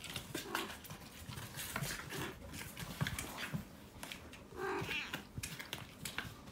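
A cat meowing three times, the last call longer than the others, over soft rustling and clicks.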